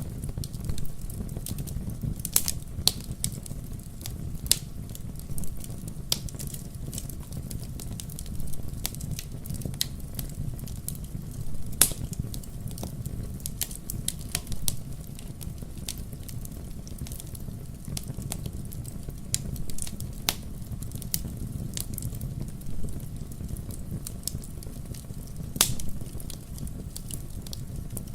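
Wood logs burning in a fireplace: irregular crackles and sharp pops over a low steady rumble of the flames, with a few louder snaps.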